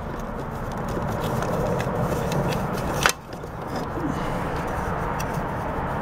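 Plastic protective cover being worked loose by hand from the start-relay housing on a refrigerator compressor, with scraping and rustling and one sharp click about three seconds in.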